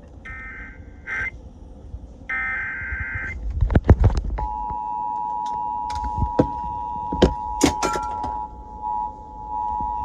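NOAA Weather Radio Emergency Alert System tones: two short warbling data bursts of the SAME alert header, then, about four seconds in, the steady two-tone EAS attention signal that announces the next warning. Several sharp clicks and knocks sound over the tone.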